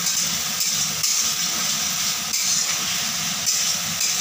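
Masala of onion, tomato and spice paste sizzling in oil in a metal kadai while a spatula stirs and scrapes it. The hiss rises and falls in waves with the stirring as the masala is fried down (kosha).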